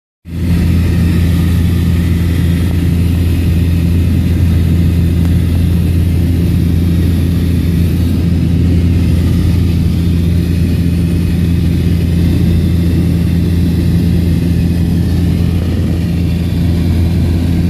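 Small private plane's engine droning steadily, heard inside the cabin: a strong, even low hum under a constant rush of air.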